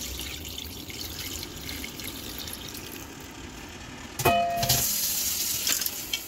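Water poured from a saucepan into a heavy cast-iron pot of duck and vegetables, splashing over the ingredients. About four seconds in comes a metallic clank with a short ring, and the pour then sounds louder and brighter.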